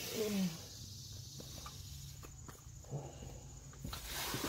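A short falling vocal sound from a person at the start, then faint handling noise with a few light clicks over a low steady hum as people shift about under a truck.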